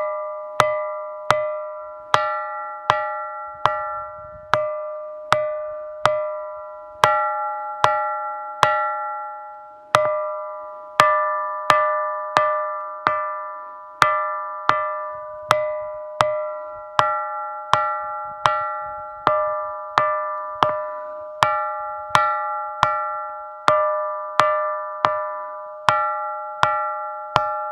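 A ringing rock (bell stone) struck over and over with a small hand-held stone, about one to two strokes a second. Each stroke gives a metallic, bell-like ring of several pitches that fades within a second, with different spots on the rock sounding like two big, different bells.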